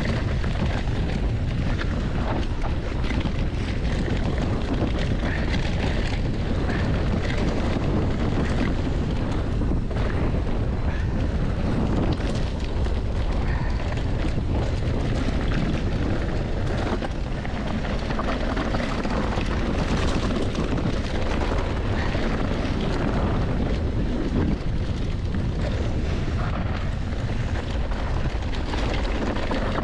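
Mountain bike riding down a rough dirt trail: wind rushes over the microphone and the tyres rumble on the ground, with frequent small knocks and rattles from the bike.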